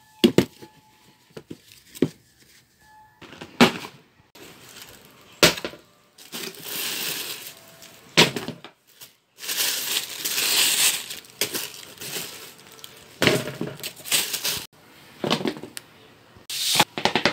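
Shoebox being unpacked by hand: cardboard knocks and clatters several times, with two longer spells of tissue paper rustling and crinkling near the middle.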